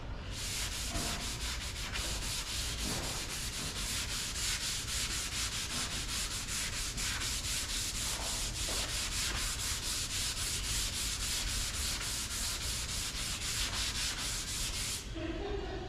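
Sandpaper sanding over cured Bondo body filler on a car body panel, a steady scratchy hiss with a quick even rhythm. It stops abruptly about a second before the end.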